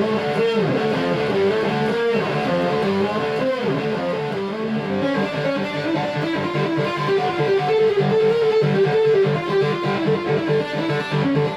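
Electric guitar played through a Diezel VH4-2 overdrive/distortion pedal: heavily distorted riffing. From about halfway in it turns to fast, evenly repeated picked notes. Heard through a phone's microphone.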